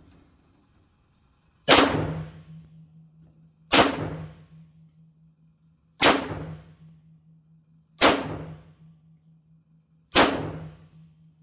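Five .357 Magnum shots from a Smith & Wesson Model 640 snub-nosed revolver, fired about two seconds apart, each a sharp crack that dies away over about a second.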